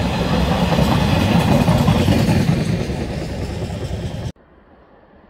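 Empty intermodal container flat wagons of a freight train rolling past at speed, a loud steady rumble and clatter of wheels on the rails. It cuts off abruptly about four seconds in, leaving only a faint background.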